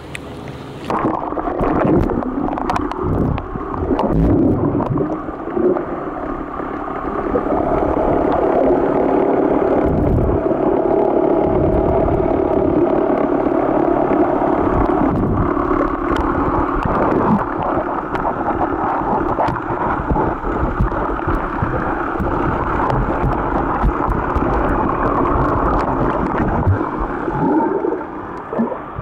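Muffled underwater sound picked up by a camera in its waterproof housing once it dips below the surface about a second in: a steady hum and gurgling with the high end cut off.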